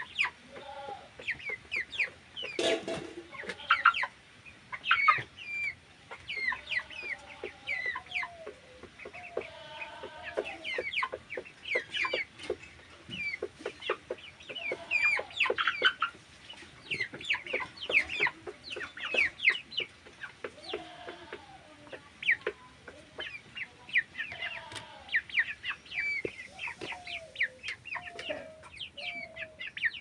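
A flock of broiler chickens calling continuously: many rapid, high-pitched peeps over lower, drawn-out clucking calls.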